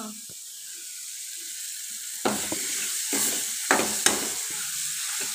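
A yellow spiced curry sizzling in a hot kadai, growing louder from about two seconds in. A spatula stirs and scrapes against the pan about six times.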